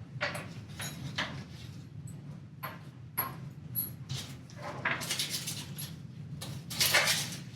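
Nails being worked out of old pieces of wood by hand: irregular scrapes, creaks and clicks, with a couple of brief high squeaks. A longer scrape comes about five seconds in and the loudest about seven seconds in.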